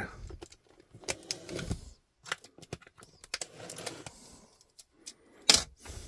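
Utility knife cutting the tape on a cardboard box, with scattered light clicks and scrapes of the blade against the cardboard, and a sharper knock from the box near the end.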